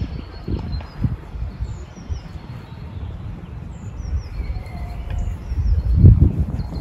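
Small birds chirping with short, falling calls, over a low rumble of wind on the microphone that swells about six seconds in.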